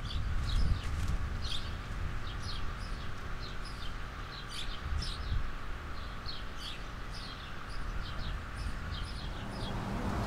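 Small birds chirping over and over, with a low outdoor rumble underneath.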